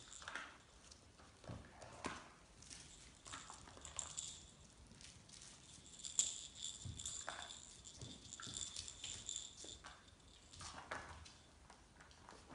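Puppies and their mother at play on a floor of blankets and soft toys: small paws pattering, toys and bedding rustling and knocking, and a few short puppy sounds. A faint thin high tone comes and goes until about two-thirds through.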